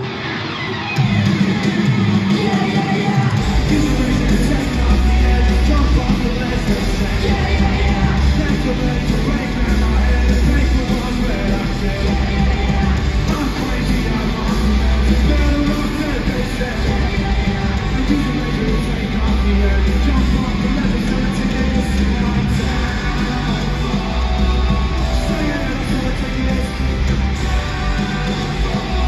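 Loud live rock music from a full band playing through an arena sound system, heard from among the audience; a heavy bass line comes in about three seconds in and pulses steadily.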